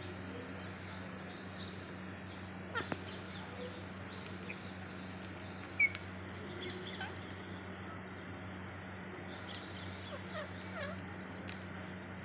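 Faint, scattered short bird chirps and calls, some as quick downward-sliding notes, with one sharper chirp about six seconds in, over a steady low hum.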